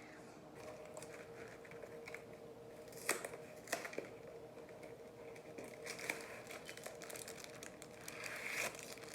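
Quiet kitchen handling sounds: packaging crinkling and a few light clicks and taps as pre-made cookie dough is set out on a baking pan, with two sharper clicks a few seconds in, over a faint steady hum.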